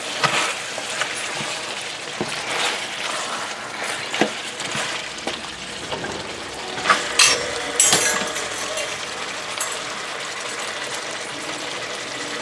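Pork curry sizzling in a metal pot as a silicone spatula stirs it, with scattered clinks and knocks of the spatula against the pot, the loudest two a little past halfway. The meat is frying because most of the juices it released have cooked down.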